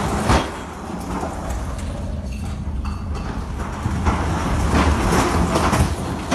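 Steady low rumble with a rushing noise that eases off and then swells again, and a sharp knock just after the start: wind and heavy sea heard on a ship's deck.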